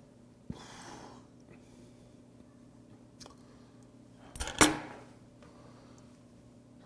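Quiet handling and cutting sounds as a small knife works a piece of stone sea squirt. About four and a half seconds in comes a sharp double clatter, the loudest sound, as the metal knife is put down on the plastic cutting board.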